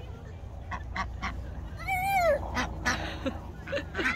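A duck quacking in short calls, with one longer call about two seconds in that rises and falls in pitch.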